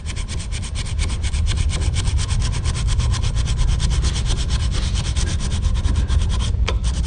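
Emery cloth rubbed rapidly up and down on the steel lump of a side-by-side shotgun's barrels: a fast, even scratching of many strokes a second, with a short pause near the end. The metal is being polished, not cut, to clean up file marks.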